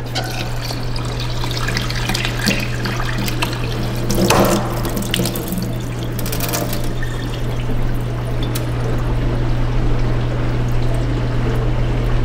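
Cloudy rice-rinse water poured from a glass measuring cup into a stainless steel sink, splashing and trickling on the metal, louder for a moment about four seconds in. A steady low hum runs underneath.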